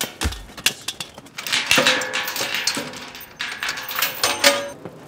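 Scuffle over a bicycle: a deep thump about a quarter second in, then a run of knocks, metallic rattling and clattering as the bike is grabbed and wrenched, with short ringing metal tones in the thick of it.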